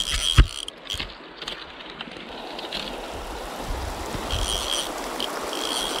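Mountain stream water running steadily over rocks, with a sharp knock just after the start. A steady high insect buzz comes in over the water in the second half.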